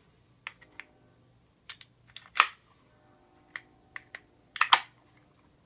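Plastic clicks and taps of a Ruger BX-25 magazine's shell halves being fitted back together and pressed closed. Light scattered clicks, with a louder one about halfway through and a quick cluster near the end.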